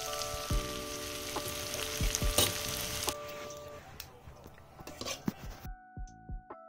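A spice masala frying in oil in an aluminium wok, sizzling steadily, which fades out about four seconds in. Soft piano instrumental music plays throughout, with a few light clicks near the end.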